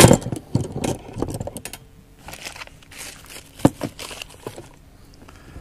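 Hands handling packaging: a cardboard box and a plastic mailer bag rustling and crinkling, with scattered taps and clicks. A loud knock at the start and a sharp tap a little past halfway.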